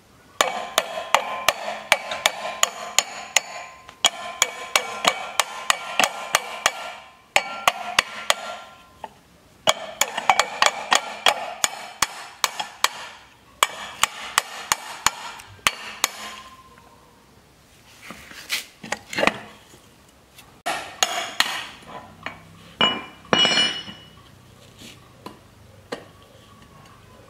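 Hammer repeatedly striking a rusted electric motor's shaft and end cover, about three ringing metal blows a second in runs. Sparser, lighter knocks follow later. The blows are loosening the end cover so the motor can be taken apart.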